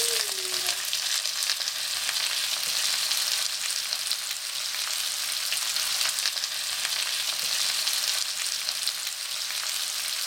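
Chopped red onion and ginger-garlic paste frying in hot ghee in a kadai: a steady sizzle with fine pops.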